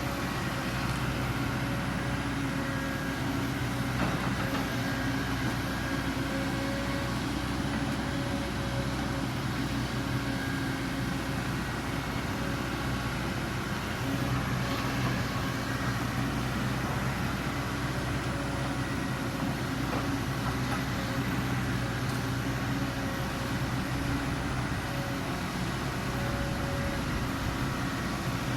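Excavator diesel engine running steadily at a constant speed, with a few faint ticks and knocks.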